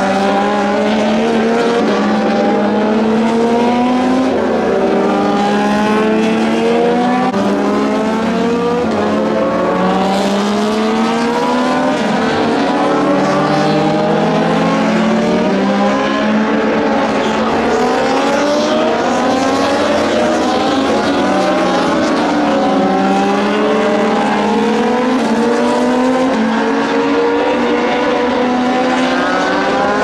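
Several Moto2 race bikes, with Triumph 765 cc three-cylinder engines, accelerating hard and changing up through the gears as they pass on track. Many rising engine notes overlap and cross one another, each climbing, breaking off at a shift and climbing again.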